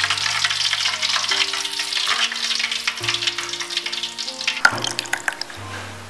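Whole battered red tilapia deep-frying in hot oil in a wok, the oil crackling and sizzling densely. The crackle thins out in the last second or so as the fish is lifted out of the oil, with a sharp click partway through.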